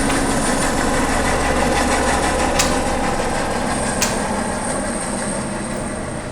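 Helicopter running, a thin high turbine whine over a low steady drone, growing slowly fainter over the second half. Two sharp clicks come in the middle, about a second and a half apart.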